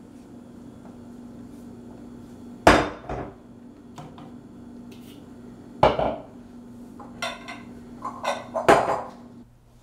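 Kitchenware being handled: a clear mixing bowl and dishes knocking and clattering against the countertop and cabinet in separate bumps, about three seconds in, near six seconds, and in a quick run of knocks near the end. A steady low hum sits underneath and stops near the end.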